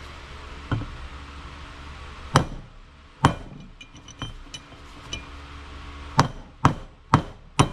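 Hammer striking a brass punch to drive a wheel bearing race out of a truck's front hub. The strikes are sharp and metallic with a short ring. Two come a second apart, then a few light clinks, then four quick strikes about half a second apart near the end.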